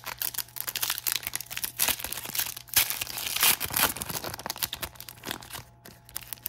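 Foil wrapper of a trading card hobby pack being torn open and crinkled by hand: a dense, irregular crackle, loudest in a run of tearing about three to four seconds in.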